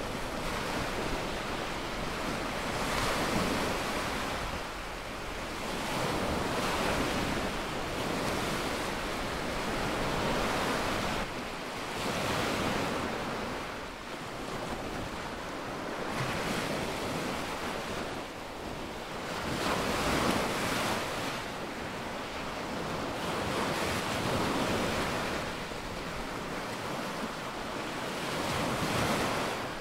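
Small lagoon waves breaking and washing up a sandy beach, a hiss of surf that swells and fades every few seconds as each wave comes in and draws back.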